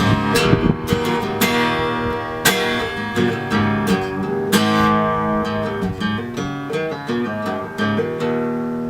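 Acoustic guitar music, strummed chords with plucked notes, fading toward the end.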